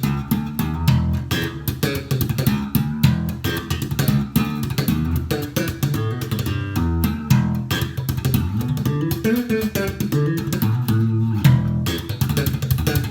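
Ibanez SR1405 five-string electric bass played solo: a busy run of plucked notes, each with a sharp attack, moving through the low and middle register.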